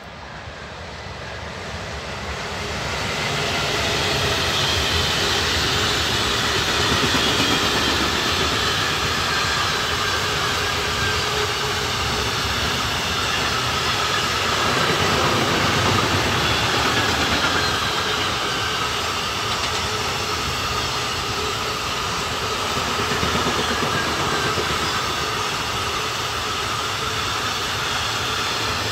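Long freight train of container and tank-container wagons rolling past on the track. The noise builds over the first few seconds as the locomotive approaches, then holds as a steady rumble of wheels on rail, with faint wavering high squealing tones from the wheels above it.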